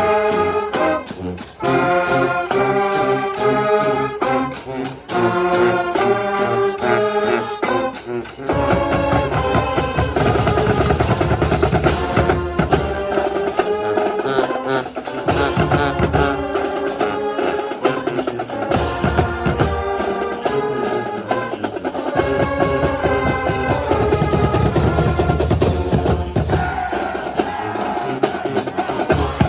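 School marching band playing: brass sustaining chords for the first several seconds, then drums and percussion enter about eight seconds in and play a steady beat under the brass.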